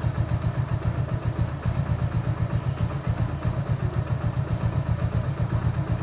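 Hero Passion Pro's single-cylinder four-stroke engine idling steadily with even, regular pulses. It runs with a freshly fitted timing chain and cam sprocket and adjusted tappets, and gives no chain rattle or knock: a healthy idle, which the mechanic calls perfect.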